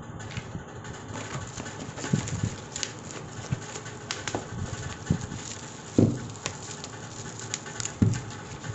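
A delivery package being handled and opened by hand: scattered rustling and clicking, with two heavier thumps about six and eight seconds in.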